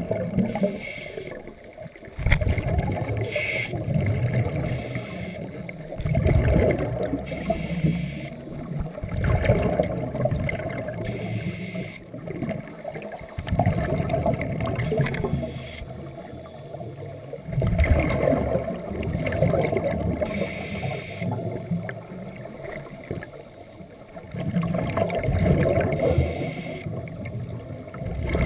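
Scuba divers breathing underwater through their regulators: a burst of bubbling exhaust every three to four seconds, with a fainter hiss between bursts.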